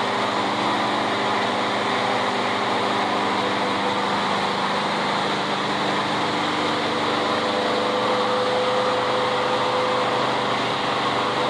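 A Honda CRF300L's single-cylinder motorcycle engine and a lawn mower engine running together, steady and even, neither revved. A steady higher tone joins the engine sound about halfway through.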